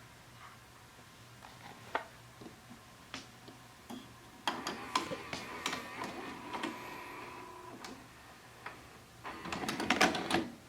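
Sanyo VHR 5420 VCR's tape mechanism at work: a few single clicks, then a motor whirring with a steady whine under rapid clicking for about three seconds. Near the end comes a louder clatter of clicks and rattles, the loudest part.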